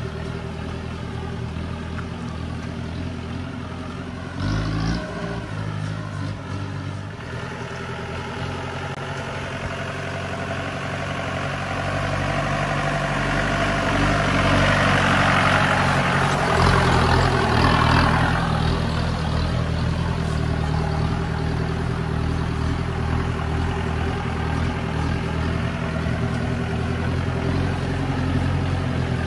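Mahindra 4x4 jeep's diesel engine running steadily as it is driven over a rough off-road track. There is a short knock about four seconds in. The engine grows louder from about twelve seconds in, with a rush of noise around the middle.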